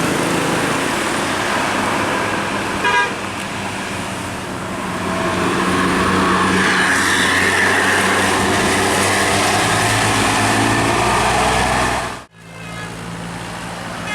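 Buses and road traffic passing with engines running, and a short horn toot about three seconds in. The sound drops out abruptly for a moment near the end.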